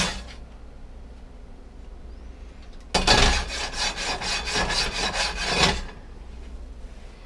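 Rhythmic metal-on-metal rasping, about four strokes a second for nearly three seconds, as a carbon steel frying pan is worked back and forth on an electric coil burner.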